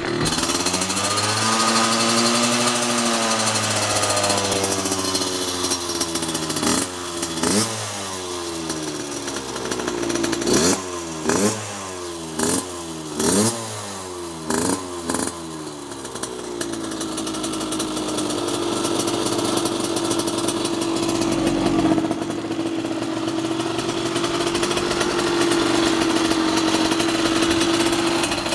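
Derbi Senda's small two-stroke engine with a Yasuni expansion-chamber exhaust, running on the stand. The revs rise and fall slowly at first, then come a string of about eight quick throttle blips, and after that the engine holds a steady speed to the end.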